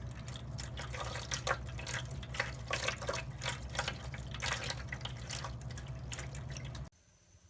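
Water trickling from a tap into a sink, with many quick irregular splashes and drips as a cat laps at the stream; it cuts off suddenly near the end.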